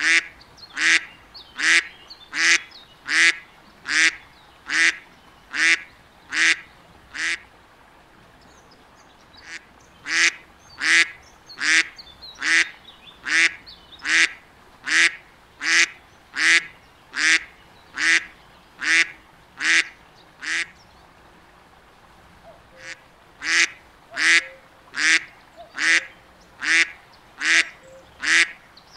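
Duck quacking in a steady series, a loud quack a little more often than once a second, in three runs broken by two short pauses.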